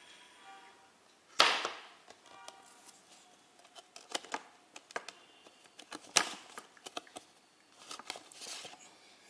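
Hands handling a cardboard disc digipak and sliding a Blu-ray disc out of its paper sleeve: sharp clicks and snaps, the loudest about a second and a half in and another about six seconds in, with smaller clicks between, and a short scrape of the disc against the sleeve near the end.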